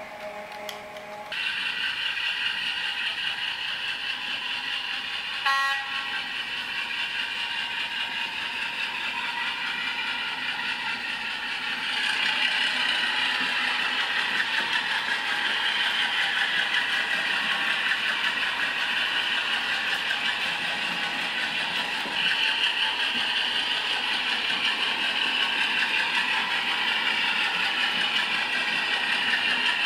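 Train running sound: a steady rumble and rattle of rolling stock, with a short horn toot about five and a half seconds in. A held tone at the start cuts off just over a second in, and the running noise grows a little louder around twelve seconds in and again after about twenty-two seconds.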